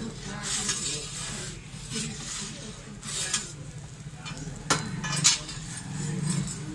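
Metal pizza turning peel scraping over the stone floor of a wood-fired brick oven as a pizza is turned, in repeated short scrapes with two sharp clinks a little past the middle. A steady low hum runs underneath.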